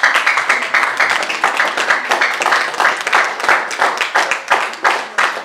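Audience applause: many people clapping at once, loud and continuous.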